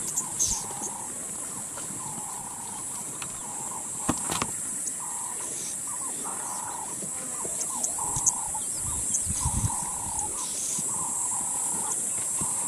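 Waterhole bush ambience: a steady high insect drone, short calls around mid pitch repeating every second or so, and a low rumble about nine seconds in.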